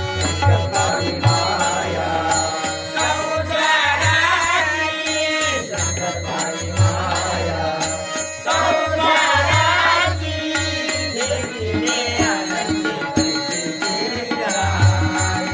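Marathi devotional bhajan: a lead voice sings phrases of the chant over sustained instrumental tones, a steady drum beat and jingling hand cymbals.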